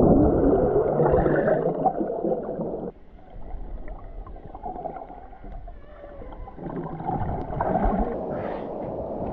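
Muffled churning water heard underwater through a submerged camera housing. It drops suddenly about three seconds in to a quieter low rumble, then builds again near the end.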